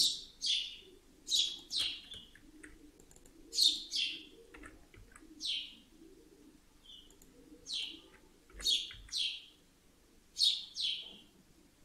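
A bird chirping: short, high chirps that sweep downward, in groups of two or three every second or two.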